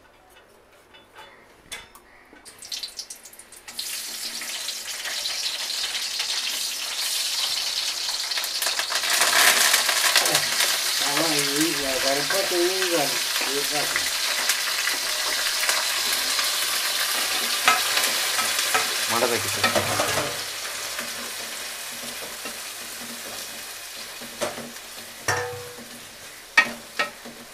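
Hot oil in an aluminium pan sizzling, swelling to a loud hiss about a third of the way in as chopped potato, tomato, onion and green chillies are tipped in, then dying down gradually as they are stirred. A few sharp scrapes and clicks of the steel spoon against the pan come near the end.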